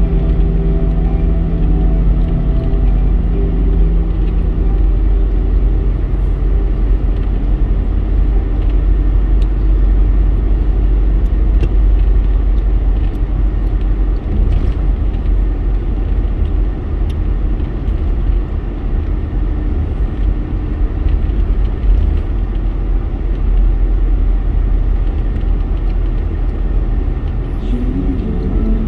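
Steady low rumble of a car's engine and tyres on the road, heard from inside the cabin while driving along at highway speed. Music with held notes fades out over the first few seconds.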